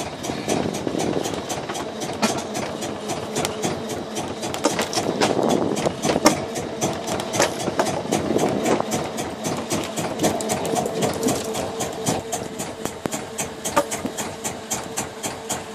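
Boat engine running steadily, with a fast run of regular clicks or clatter over it.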